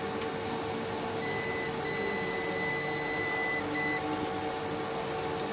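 Digital multimeter beeping as its probes check a laptop motherboard's protection diode and MOSFET for a short. There are three beeps: a short one, a long one of nearly two seconds and another short one, over a steady hum.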